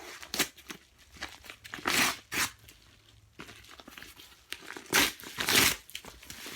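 A mail package being torn open by hand: several loud rips, one near the start, two at about two seconds, two more at about five seconds, with crinkling of the packaging between them.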